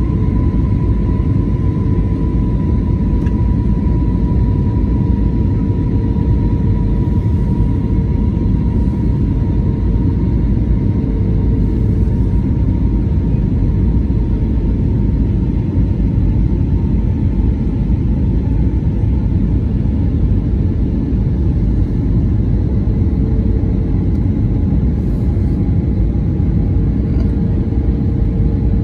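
Jet airliner's engines heard from inside the passenger cabin during the climb after takeoff: a steady loud rumble with a faint engine whine that slowly falls in pitch.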